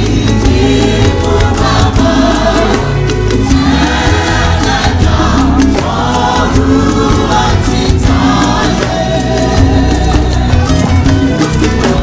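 Church choir singing a hymn together, backed by a band with keyboard and drums keeping a steady beat.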